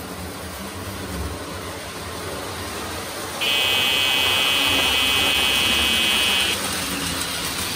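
Lionel O-gauge NW2 diesel switcher models running on tinplate track with a low rumble. About three and a half seconds in, the locomotive's electric buzzer horn sounds steadily for about three seconds and then cuts off.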